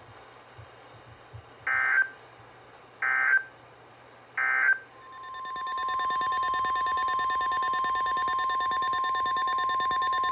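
Emergency Alert System signalling: three short warbling SAME data bursts about 1.3 s apart, the end-of-message code. About five seconds in, a loud, steady single alert tone near 1 kHz starts and holds: the attention signal that opens the next warning.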